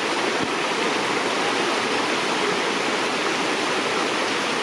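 Steady rushing noise like flowing water from a stream or small waterfall, with one faint low thump about half a second in.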